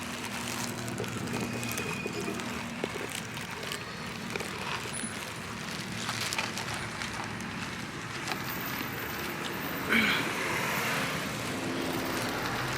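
Steady outdoor traffic noise from passing vehicles, with a short louder sound about ten seconds in.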